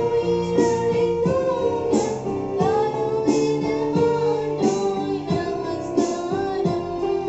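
A girl singing a Tamil keerthanai (devotional hymn) with electronic keyboard accompaniment over a steady beat.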